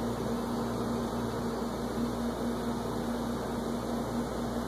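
Steady background hum and hiss with a low tone that drops out briefly now and then; no stylus taps stand out.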